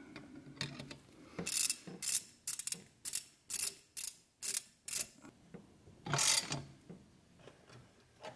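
Socket ratchet on a long extension clicking in short rasping bursts, about two strokes a second, as it tightens the hose clamp on an intake tube; a longer ratcheting run follows about six seconds in.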